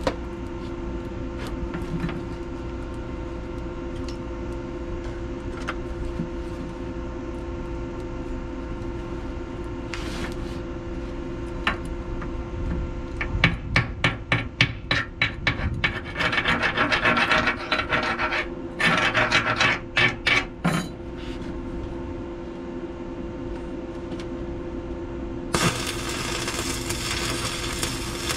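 Slag being cleaned off a fresh stick weld on a steel pipe by hand, in rapid rasping scraping strokes for several seconds midway, over a steady machine hum. Near the end a stick-welding arc strikes and crackles steadily.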